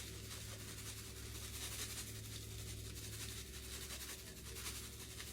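Faint dry rustling and scratching of panko breadcrumbs being scooped and sprinkled over chicken, over a steady low hum.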